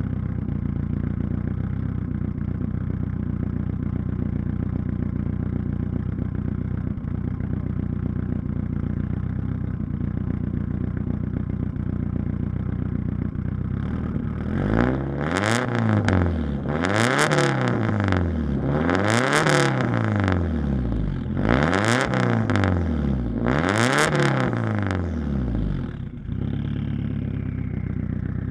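Lancia Delta HF Integrale Evoluzione's turbocharged 2.0-litre four-cylinder through a straight-pipe exhaust, idling steadily for about half the time. It is then blipped five times in a row, each rev climbing and falling back over about two seconds and louder than the idle, before settling back to idle with a faint falling whistle.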